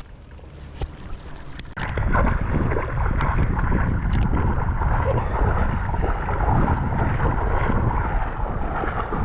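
Wind buffeting the microphone: a loud, even, low-heavy noise that starts abruptly about two seconds in, after a quieter stretch with a few clicks.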